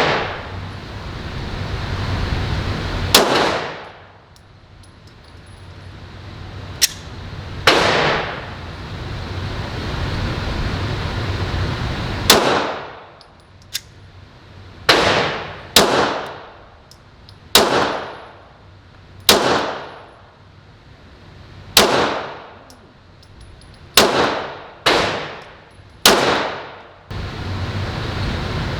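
Glock 17 9mm pistol fired about eleven times, single shots spaced several seconds apart at first and then coming about a second or two apart, each shot ringing off in the reverberation of an indoor range.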